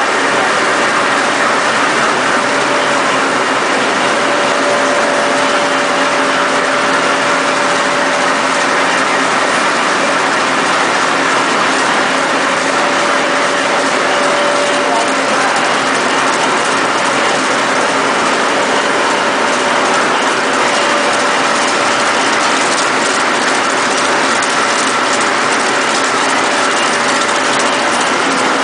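A 4-colour rotogravure printing press running, its rollers carrying printed plastic film. It makes a steady, even machine noise with a constant mid-pitched whine.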